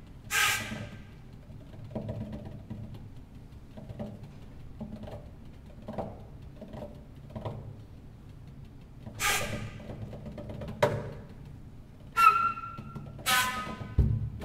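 Sparse live percussion: soft drum hits roughly once a second, with a few louder struck hits that ring on with a clear pitched tone.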